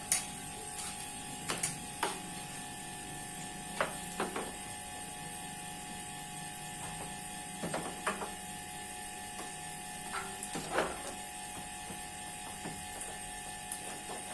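A steady electrical hum with a constant whine runs throughout, with irregular short clicks and light knocks scattered through it.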